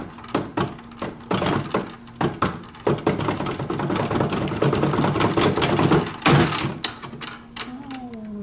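Hands drumming on the lid of a wooden chest: separate knocks and slaps that speed up into a fast drumroll in the middle, then slow to a few scattered hits. A short falling tone near the end.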